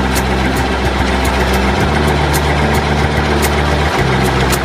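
Steady tractor-engine sound effect, its low hum stepping to a new pitch twice.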